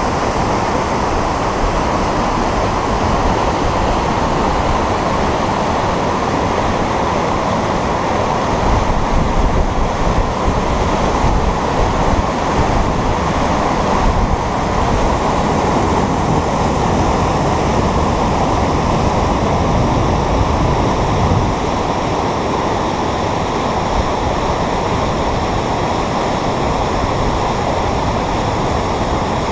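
Whitewater of a river rapid pouring over rock ledges: a steady, dense rush of water, a little louder in the middle.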